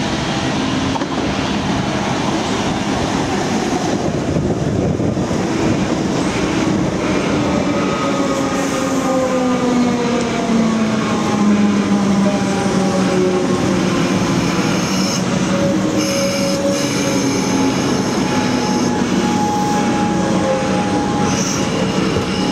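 Comeng suburban electric train running in along the platform: a steady rumble of wheels on rail with several whining tones that slowly fall in pitch as it slows, and faint higher squealing from the wheels.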